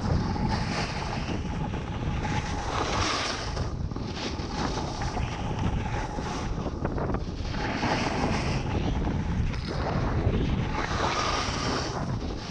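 Wind rushing over and buffeting a pole-mounted GoPro Hero 6's microphone as a snowboard slides down groomed snow. The board's edges scrape the snow in swells as it carves turns.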